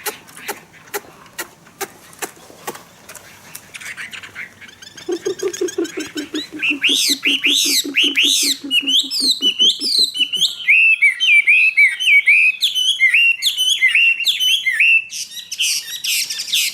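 Caged Chinese hwamei singing loudly in a varied run of whistled notes that sweep up and down, the song taking over about six seconds in. It is preceded by a series of sharp clicks and a low, fast rattling call.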